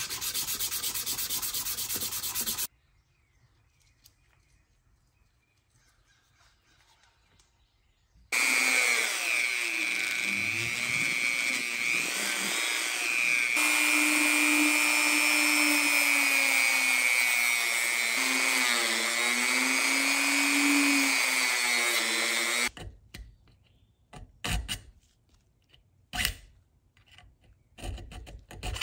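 Rubbing or sanding for the first few seconds, then near silence. About eight seconds in, a power tool starts and runs for about fourteen seconds with a loud whine whose pitch wavers, then stops, followed by scattered knocks and clicks.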